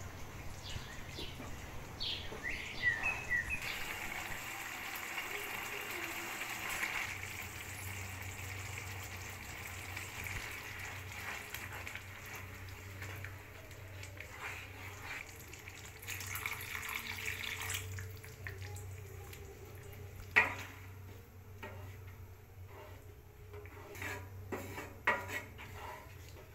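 A wooden spatula stirring a pan of liquid onion-garlic soup: wet sloshing and sizzling with light scrapes and taps against the pan. One sharper knock comes about three-quarters of the way through.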